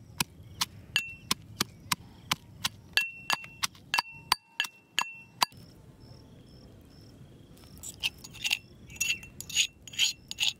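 Iron pestle pounding in a cast-iron mortar, about three ringing metallic strikes a second. The strikes stop about halfway through, and a few irregular clinks follow near the end.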